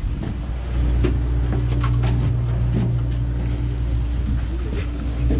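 Steady low mechanical drone of the fishing boat's onboard machinery, with a few light clicks and knocks from the deck.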